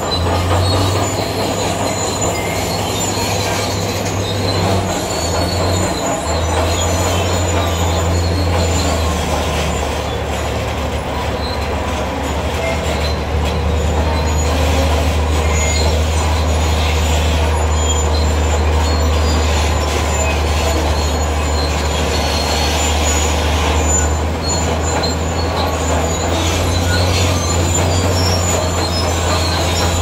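Zoomlion crawler bulldozer working, its diesel engine a steady low drone, with a high metallic squeal from its steel tracks. The engine note shifts briefly about five seconds in.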